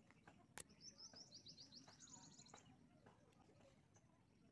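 Near silence, with faint bird twittering: a quick run of high chirps lasting about two seconds, after a single soft click.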